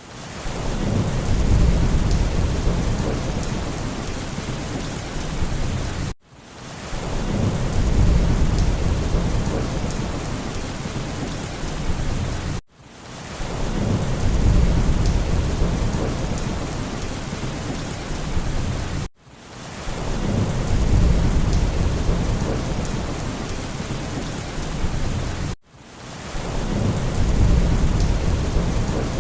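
Steady heavy rain with a low rumble of thunder that swells and fades. The same few seconds of rain and thunder repeat as a loop about every six and a half seconds, each repeat starting with an abrupt cut.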